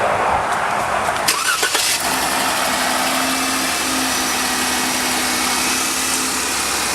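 Jeep Wrangler JK's V6 engine starting about a second and a half in, then idling steadily: its first start after an oil and filter change.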